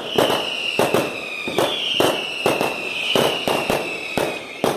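Fireworks going off around the neighbourhood: a rapid, uneven run of bangs and pops, about three a second. A high tone slides slowly down in pitch underneath them and ends with a bang near the end.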